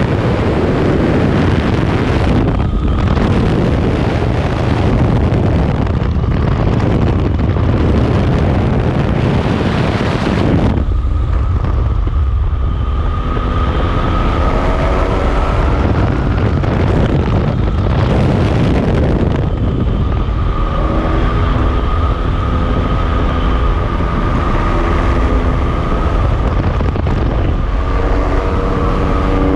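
Steady loud rumble of a moving vehicle with wind noise; about eleven seconds in the hiss drops away and a wavering hum of several tones comes through over the rumble.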